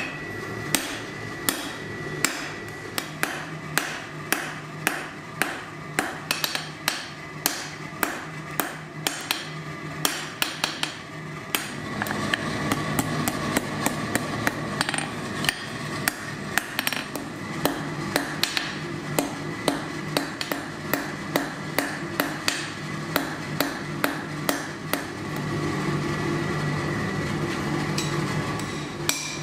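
Hand hammer striking a red-hot bar on an anvil in a steady forging rhythm of about two blows a second, each blow ringing briefly. A steady low rush runs underneath and grows louder about twelve seconds in.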